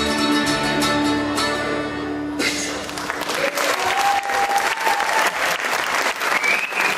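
A bluegrass band of fiddle, acoustic guitars, mandolin and upright bass holds its final chord, which cuts off about two and a half seconds in. Audience applause follows, with a voice or two calling out over it.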